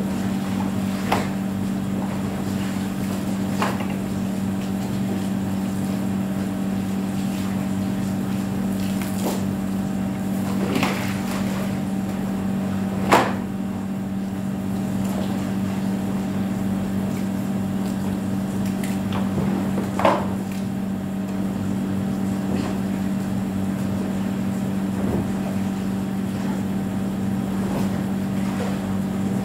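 A steady mechanical hum with a few short knocks and rustles, about five in all, from the plastic of a portable swimming pool being handled; the loudest comes about halfway through and another about two-thirds of the way.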